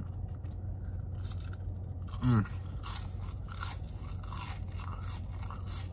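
Close-up chewing of a sauce-dipped curly fry, with a run of small crisp crunches, and a short falling "mm" from the eater about two seconds in.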